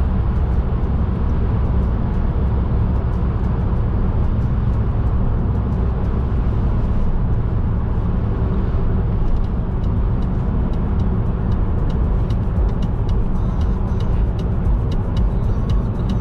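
Car driving along the road: a steady low rumble of engine and tyres. From about halfway through, light irregular clicks run over it.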